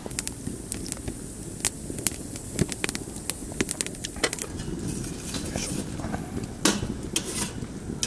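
Wood fire crackling in a campfire grill, with irregular sharp pops and snaps.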